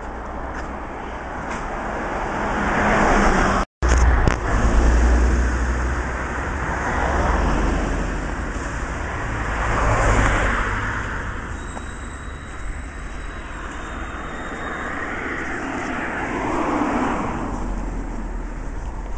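Road traffic: several cars pass one after another, each swelling and fading, with a short break to silence a little under four seconds in.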